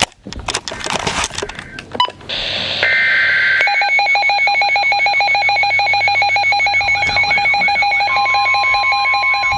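Weather alert radios activating: crackling static and clicks, then a short burst of two-tone SAME digital header data about three seconds in. Then the radios sound their alarms at once: a rapid pulsing beep, a warbling siren-like tone joining about seven seconds in, and the steady NOAA Weather Radio warning tone starting near the end.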